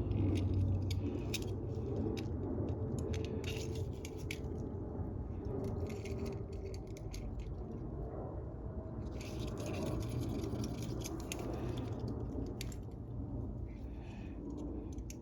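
Small clicks, taps and scrapes of small metal lawn-mower carburetor parts being handled and worked on, scattered through a steady low hum.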